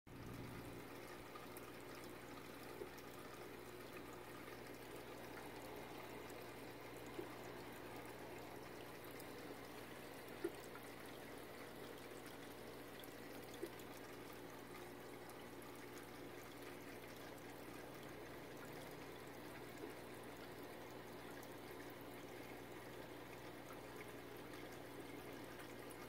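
Aquarium water running steadily, a quiet continuous trickle from the tank's filter circulation, under a low steady hum, with a few faint ticks.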